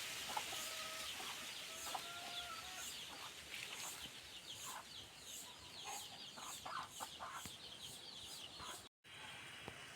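Chickens clucking, with short calls scattered through, over a constant high-pitched chatter in the background.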